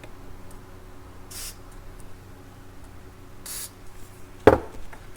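Two short hissing bursts of an aerosol contact cleaner sprayed into a corroded trim pot (variable resistor) on a stereo receiver's board, followed by a sharp knock near the end.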